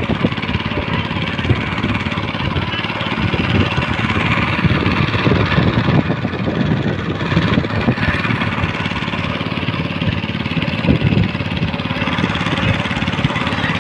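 Small boat's engine running steadily as the boat moves across floodwater, with the noise of moving water.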